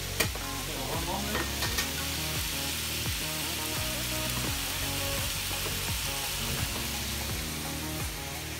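Diced fresh tuna frying in oil in a pan, a steady sizzle. A couple of sharp clicks in the first two seconds, the loudest about a quarter-second in.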